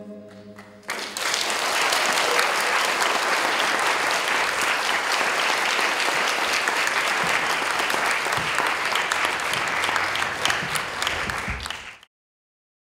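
The last held notes of the music fade out, then audience applause starts suddenly about a second in, runs steadily, and cuts off abruptly near the end.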